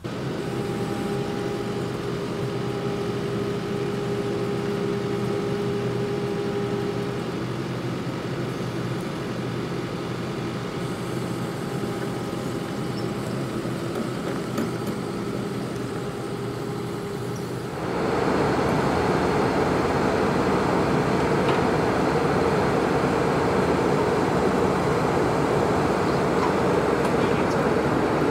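Kubota SVL97-2 compact track loader's diesel engine running steadily while it lifts a pallet off a flatbed truck with its forks. The engine gets louder about 18 seconds in.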